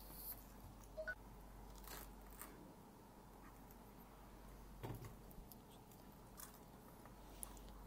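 Near silence with a few faint, scattered knocks and taps as pieces of peeled pineapple are picked up and set down on a plastic cutting board, the clearest about one second in and about five seconds in.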